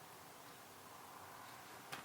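Near-silent room hiss with a single sharp click near the end, a keyboard key being pressed.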